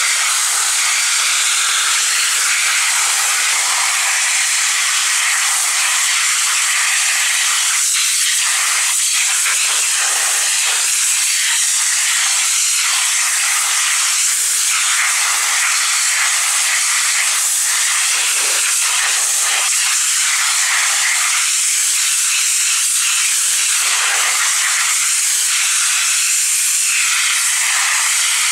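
High-pressure washer jet blasting water into a raw whole chicken and the concrete beneath it: a loud, steady spray hiss, with the splatter underneath it rising and falling as the jet tears at the meat.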